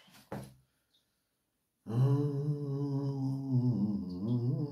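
A man humming one long, low, steady note, starting about two seconds in, its pitch dipping briefly near the end.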